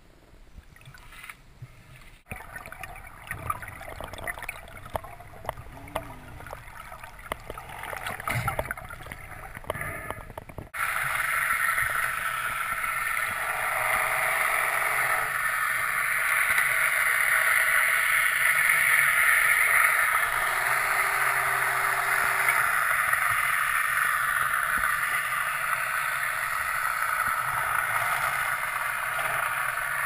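Underwater sound of a sea-urchin harvesting ROV over the seabed: at first faint, irregular crackling and clicking, then about a third of the way in a steady, loud rushing of water starts suddenly as the harvester's suction nozzle works on the rock.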